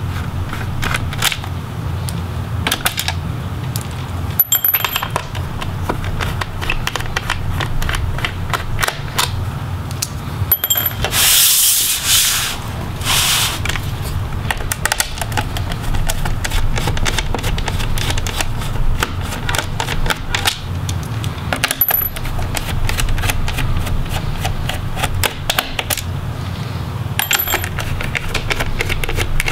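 Small Phillips screwdriver backing screws out of a laptop's plastic bottom cover: a long run of quick clicks and ticks, with tiny metal screws clinking like coins several times. A louder rasping stretch comes about eleven seconds in and lasts a couple of seconds, over a steady low hum.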